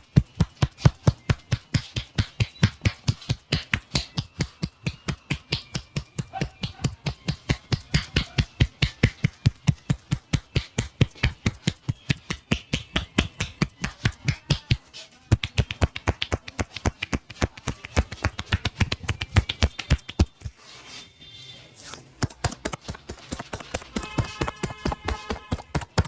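Rapid rhythmic slapping and tapping of a barber's hands on a person's head and back during a massage, about five strikes a second, with a short break near the end.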